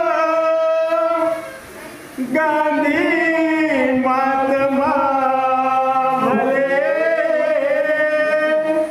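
A single voice chanting a slow Marathi wedding hymn (mangalashtak) in long, held notes, sung while the antarpat cloth is held up before the deity. There is a short breath pause about a second and a half in.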